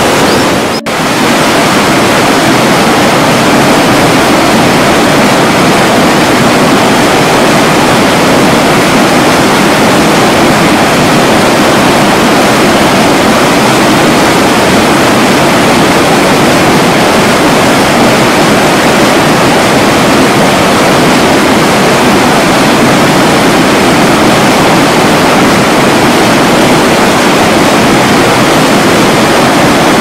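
Loud, steady rush of fast-flowing water, with a brief dip about a second in.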